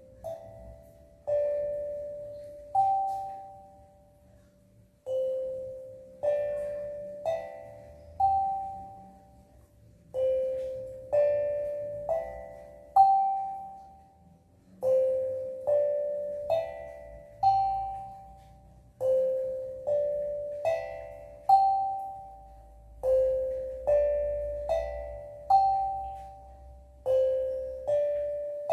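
Steel tongue drum played slowly and improvisationally: single struck notes that ring and fade, in short rising phrases of three or four notes, over and over.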